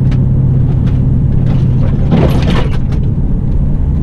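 Truck cab interior while driving slowly on a bumpy dirt road: a steady low drone of engine and road noise, with a brief louder noise about two seconds in.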